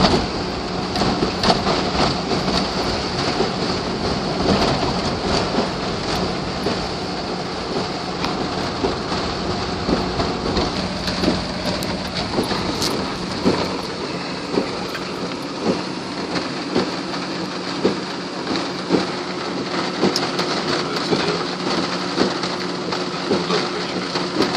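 Heavy rain falling on a car, heard from inside it: a steady hiss of rain with many sharp drop strikes, over a low steady hum.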